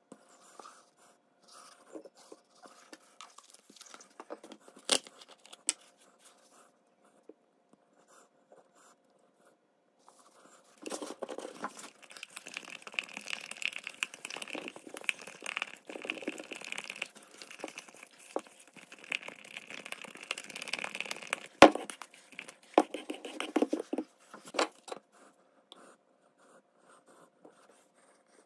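Two-part epoxy resin being stirred in a plastic mixing cup: a long spell of scraping and rubbing against the cup's sides, starting about a third of the way in and lasting around fourteen seconds, with sharp knocks scattered through it. Before the stirring there are only light handling sounds and a couple of clicks.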